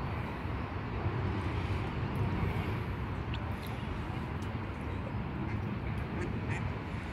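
Steady low outdoor rumble with a few faint high ticks.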